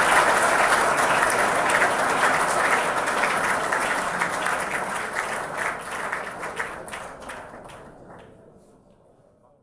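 Audience applauding, the clapping thinning to scattered claps and dying away over the last few seconds.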